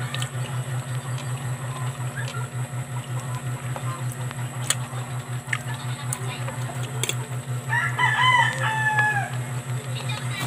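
A rooster crows once, about eight seconds in: a single call of about a second and a half that drops in pitch at the end. Underneath runs a steady low pulsing hum, with a few faint clicks.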